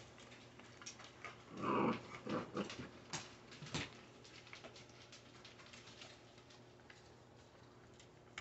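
Puppies chewing on bully slices: scattered small gnawing clicks and crunches, with a brief puppy vocalization about two seconds in and a few short sounds after it.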